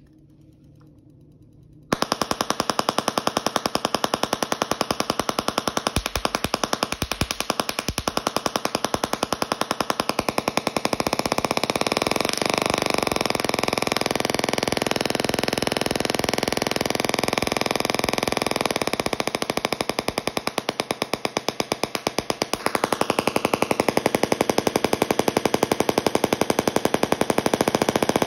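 Small solid-state desktop Tesla coil switched on about two seconds in, its spark discharge giving a loud, rapid buzzing. The buzz changes in loudness and pitch a few times, with falling sweeps, as the power and frequency knobs are turned.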